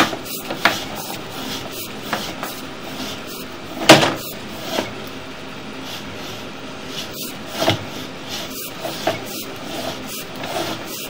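Scattered knocks and clicks from a sewer inspection camera and its push rod being fed down a pipe, the loudest knock about four seconds in and another near eight seconds, over a steady rushing background.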